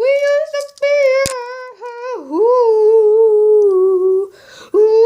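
A child's voice humming a tune in long held notes, with a swoop down in pitch about two seconds in, as an outro jingle.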